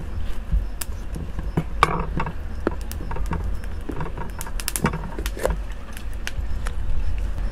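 A knife cuts around the stem of a green bell pepper, and the stem and seed core are then pulled out by hand. The sound is a scatter of short, crisp cracks and snaps from the firm pepper flesh, over a low steady rumble.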